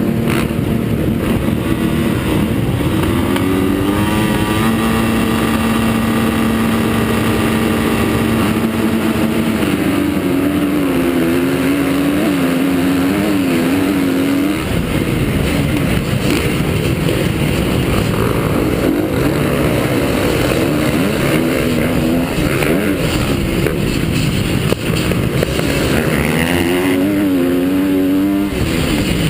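Honda CRF250 four-stroke motocross bike engine revving hard and falling back repeatedly as it is ridden round the track, held at steady high revs for several seconds at one point, over heavy wind and track noise.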